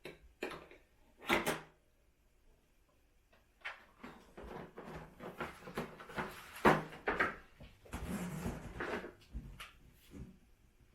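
Plastic canister vacuum parts being handled and fitted together: a few sharp clicks and knocks in the first two seconds, the loudest about a second and a half in, then several seconds of clattering and rustling. The vacuum motor is not running.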